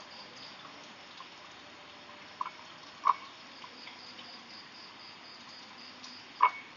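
Crickets chirping steadily in the background, a rapid high pulsing, with three short sharp plinks like drops of liquid falling: a faint one about two and a half seconds in, louder ones about three seconds in and near the end.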